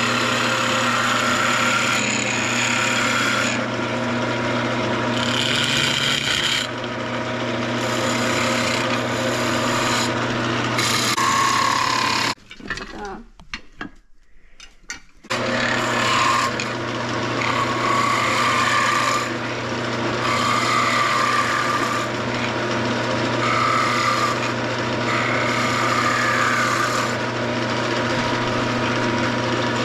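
Wood lathe running with a steady motor hum while a skew chisel cuts a spinning pine blank, the cutting noise swelling and easing as the tool is worked along it. About halfway through the sound drops away for roughly three seconds, then the lathe and cutting resume.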